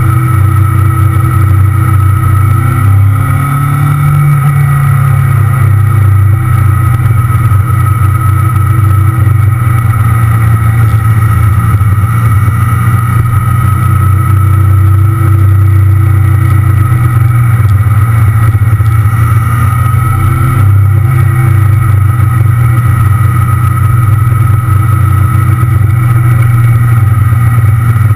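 Motorcycle engine running steadily while riding along at an even speed, its pitch rising briefly a few seconds in.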